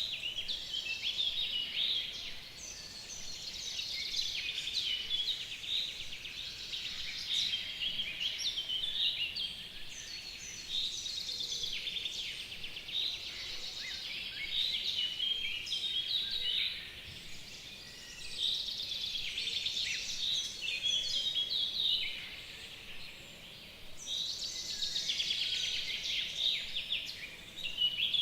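Several songbirds singing together in a spring chorus: overlapping chirps and rapid trills in phrases a few seconds long, with brief lulls between them.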